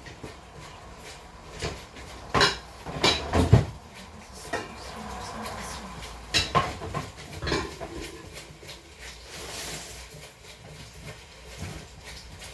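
Crockery and pots clattering as a plate and a saucepan lid are dug out of a kitchen cupboard, with a run of sharp knocks and clinks, loudest in the first few seconds.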